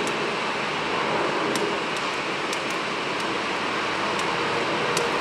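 Twin rear-mounted GE CF34 turbofans of a Bombardier CRJ900 regional jet running as the jet begins its takeoff: a steady rushing jet noise with a faint hum in it.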